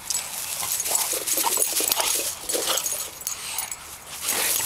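English bulldog making short grunting and whining noises as it noses and mouths a ball, with scuffing and rustling in dry grass.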